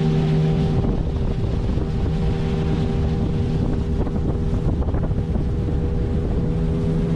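A 9.8 hp outboard motor runs steadily, pushing an inflatable PVC boat, with water and wind noise on the microphone. Its deepest tone drops away about a second in and comes back near the end.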